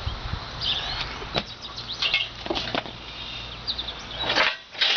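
Knocks and scrapes of a riding mower being worked off a wooden shipping pallet, its underside catching on the metal brackets, with a louder scrape twice near the end. Small birds chirp now and then.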